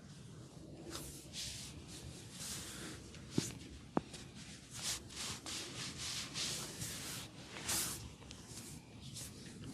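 Hands massaging a head, rubbing and scratching through the hair and over the scalp in a run of short scratchy strokes. Two short clicks come near the middle.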